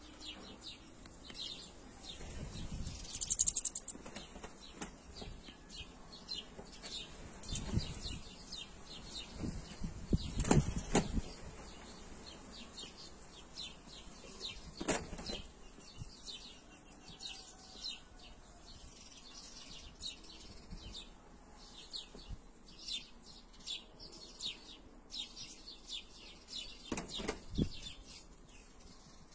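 European goldfinches chirping with many short, quick calls, some of them twittering song. A few louder low thumps come in between, about five in all.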